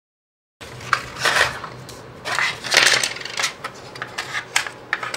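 Packaging handling on a wooden desk: cardboard and plastic rustling, with sharp clicks of small plastic parts and a coin-cell battery being set down on the tabletop. It starts after a brief dead silence.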